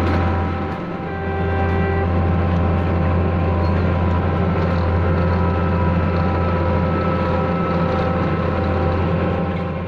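Diesel engine of heavy road-paving machinery running steadily at close range, with a brief dip about a second in and fading away near the end.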